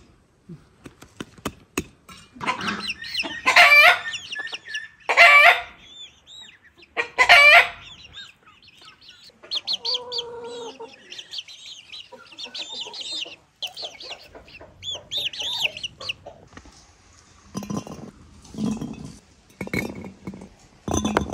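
Free-range chickens clucking in a yard, with three loud calls in the first eight seconds, then quicker chattering and clucking; a few short knocks near the end.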